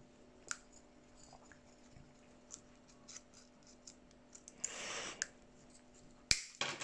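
Blunt side cutters working at the end of a piece of steel wire: small clicks and a brief scrape as the jaws grip and slip, then one sharp snap about six seconds in as the wire is cut through.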